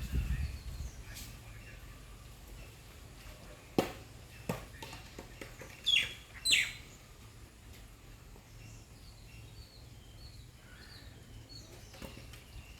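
Birds chirping, with many small high calls throughout and two loud calls that sweep down in pitch around six seconds in. Two sharp clicks come about four seconds in, and a low rumble is heard at the start.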